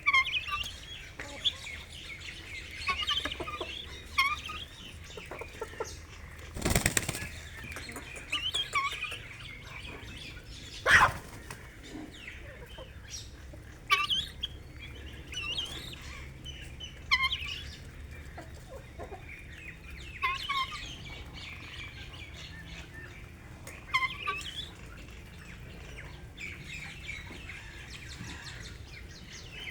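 Birds chirping with repeated short, high calls, and two loud bursts of wing flapping about seven and eleven seconds in.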